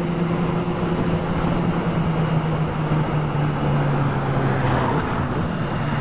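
Sport motorcycle engine cruising at a steady pitch under heavy wind noise on a helmet-mounted microphone. The engine note eases slightly lower about halfway through.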